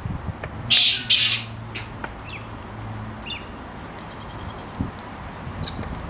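Galahs screeching: two loud, harsh calls about a second in, followed by a few shorter, softer chirps. A faint low hum sits underneath for the first half.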